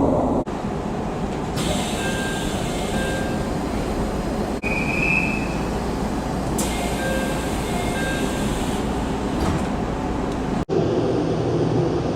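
Aichi Loop Railway 2000 series electric train door chime sounding in short repeated beeps as the sliding doors open and again as they close, with the hiss of the door mechanism over the train's steady running noise. The chime is the same as on early JR Central 313 series cars. Near the end the sound cuts to a diesel railcar at a station.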